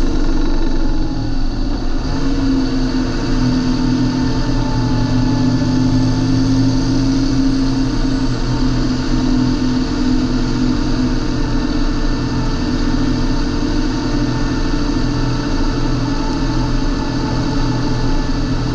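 John Deere 8320 tractor's six-cylinder diesel engine running steadily at a near-constant speed.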